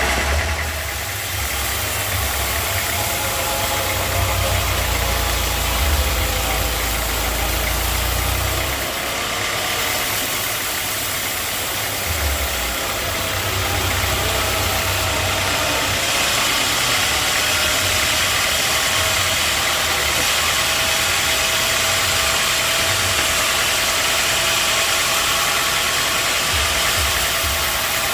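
Sawmill machinery running steadily: a motor-driven saw with a constant hiss and hum. A heavier rumble underneath eases off after about nine seconds.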